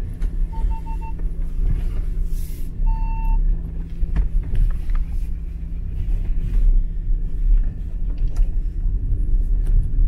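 A car rolling slowly over a rough gravel forest track: a steady low rumble with scattered knocks from stones under the tyres. Three quick electronic beeps sound about half a second in, and one longer beep about three seconds in.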